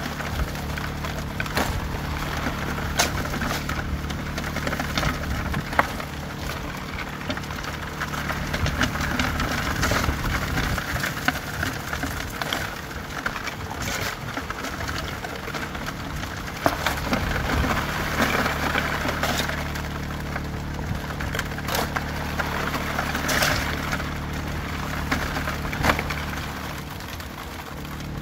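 Small gasoline water pump running steadily to feed a highbanker, with water rushing through the sluice and screen. Now and then a sharp clatter of shovelled gravel and rocks cuts in.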